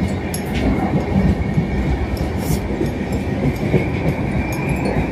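Passenger train running along the track, heard from inside a sleeper coach: a steady rumble of wheels on rails with scattered light clicks and a faint steady high whine.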